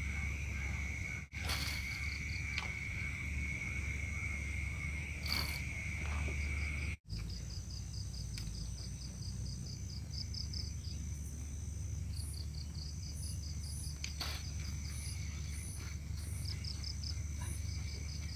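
Insects chirping and buzzing: a steady high drone that stops about seven seconds in, over a thinner constant whine, then quick trains of rapid chirps. A low rumble runs underneath, and the sound drops out briefly twice.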